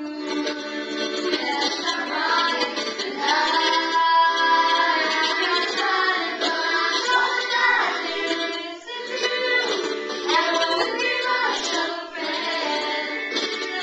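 A group of girls singing a song together, rehearsing it from lyric sheets.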